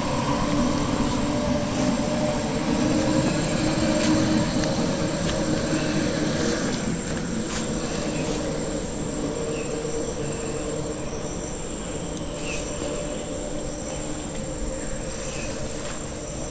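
A distant engine droning steadily with a low rumble, slowly fading, with faint high chirps now and then in the second half.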